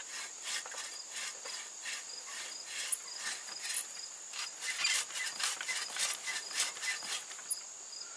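Hand saw cutting into a tree trunk, with rasping strokes repeating about twice a second. Under it runs a steady high shrill of insects.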